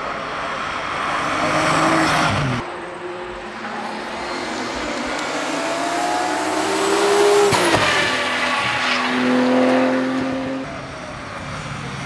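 Nissan R32 Skyline GTS-T rally car's turbocharged straight-six revving hard. Its engine note climbs in pitch and falls away sharply twice, about two and a half seconds in and again near eight seconds, then holds a steadier note.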